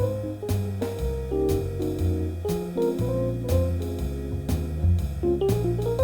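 Background music: an instrumental jazz-style track with drum kit and bass, notes changing on a steady beat.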